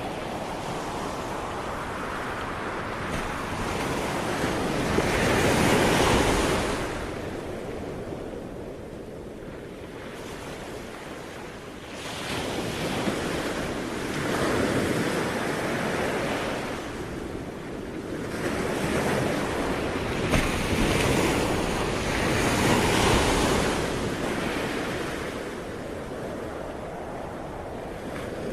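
Ocean waves breaking and washing up the shore, surging louder every few seconds, the biggest about six seconds in, then sliding back into a steady rush of surf.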